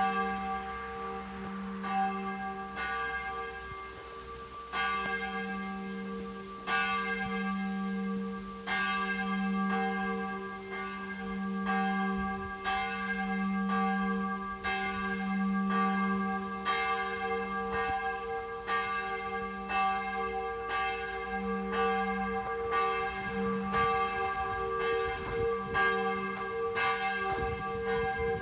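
Church bell ringing, struck about once a second, each stroke ringing on over a steady low hum. A few sharp clicks come near the end.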